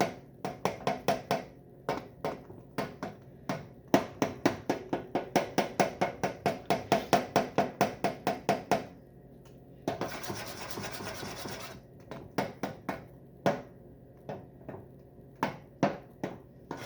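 A spoon stirring thick, sticky fudge mixture in a pot, scraping and knocking against the pot in quick rhythmic strokes, about four a second at their fastest, with a continuous rasping scrape for about two seconds past the middle and then a few slower strokes. The marshmallows are being stirred in until they melt.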